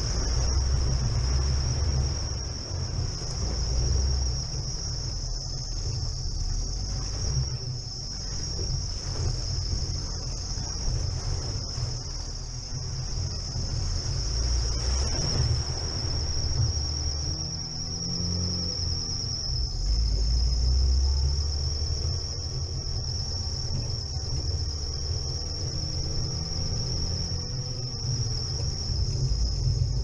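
Low, uneven rumble of a Chevrolet Niva driving slowly along an icy, snowy forest track, picked up by a camera mounted outside on the bonnet, with a steady high-pitched whine throughout.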